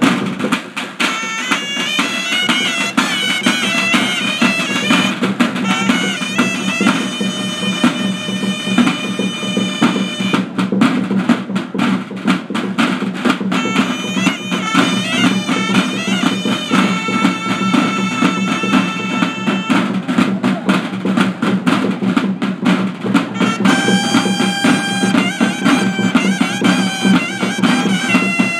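A small street band playing: wind instruments carry a melody of held notes and quick runs over a steady beat from a snare drum and a bass drum.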